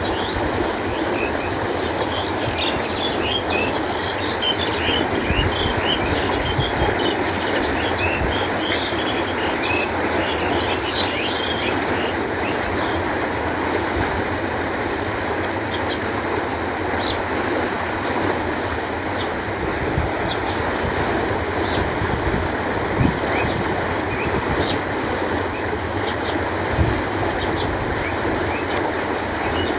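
Steady rush of flowing canal water, with small birds chirping high above it through the first dozen seconds or so.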